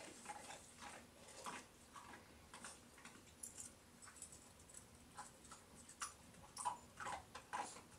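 Faint, scattered clicks and crunches of a small dog taking dry dog food from a hand and chewing it, with a few louder ticks near the end.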